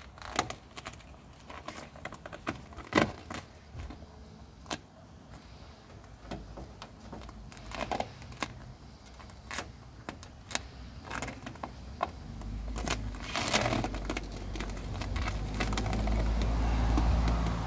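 Vinyl advertising sticker being peeled by hand off a car door panel: scattered crackles and clicks as the film and adhesive come away. A low rumble builds over the last few seconds and becomes the loudest sound.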